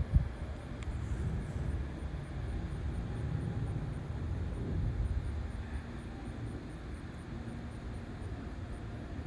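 Steady low rumble of a departing Boeing 777 freighter's GE90 jet engines as it climbs away, swelling and fading slightly, with one brief thump just after the start.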